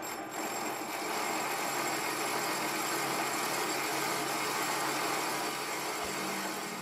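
Wasino LRS-55A metal lathe running while a gold-coloured cutting tool cuts a V groove into the end face of a spinning steel bar: a steady hiss of cutting that holds level throughout.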